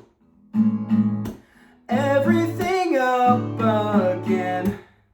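Acoustic guitar strummed, with a voice singing a last drawn-out line, the song's closing phrase. The music stops on a final chord just before the end.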